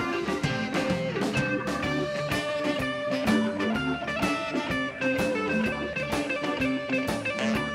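A live blues-rock band playing an instrumental passage: a Stratocaster-style electric guitar leads over a drum kit.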